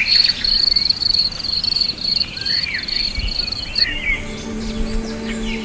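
Cicadas buzzing in a loud, pulsing high drone, with a few short bird chirps over it; the buzzing stops about four seconds in and soft, steady low music notes come in.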